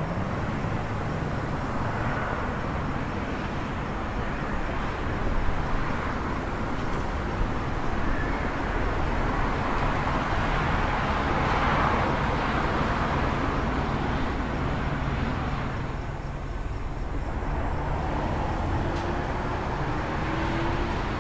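City traffic ambience: a steady wash of road traffic with a low rumble, swelling as a vehicle passes near the middle and easing briefly near the end.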